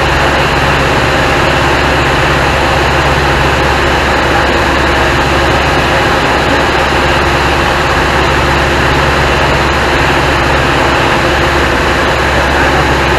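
Single-engine propeller airplane in cruise: the piston engine and propeller hold a steady, unbroken drone under a broad rush of airflow noise.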